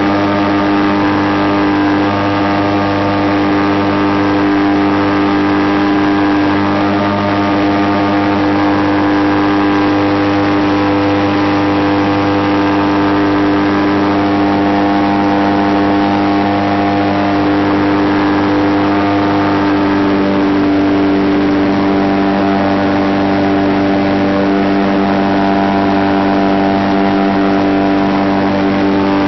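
Kolb Mark III Xtra light aircraft's engine and propeller running steadily in cruise flight, heard from inside the cockpit: a loud, even drone that holds one pitch.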